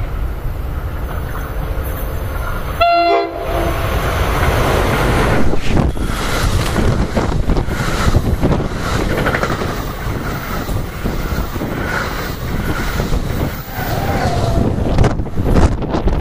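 NJ Transit double-deck commuter train sounds its horn once, briefly, then passes at speed close by: a loud rush of wheel and rail noise with clattering from the wheels over the rails.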